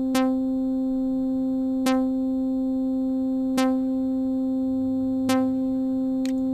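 A single synthesizer note from a Sytrus patch in FL Studio, held at one steady pitch and struck again about every 1.7 seconds, four times in all. It is fed through a mixer send to a reverb as the send level is being raised.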